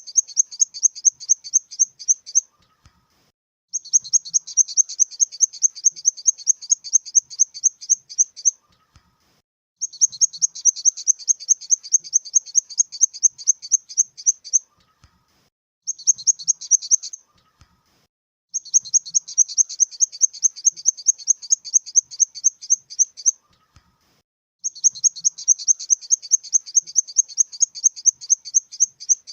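Grasshopper stridulating: runs of rapid, evenly spaced high chirps, about five a second, each run lasting several seconds with short pauses between, repeated over and over.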